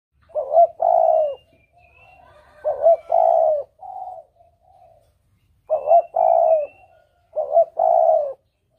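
A dove cooing four times. Each call is a short note followed by a longer, lower coo, about every two to three seconds. Faint high chirps from other birds come between the calls.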